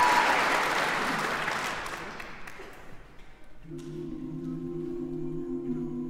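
Audience applause fading away over the first three seconds. Then a male a cappella group comes in with a steady held chord of low voices.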